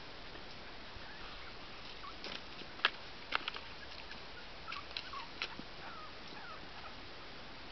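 Small dogs moving about in a dirt yard: a scatter of short, sharp sounds between about two and five and a half seconds in, the loudest near three seconds, then a few faint, short, falling whimpers.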